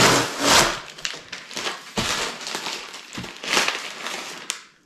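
Plastic and paper packaging crinkling and rustling in repeated bursts as a paperwork envelope is handled and opened, loudest at first and stopping just before the end.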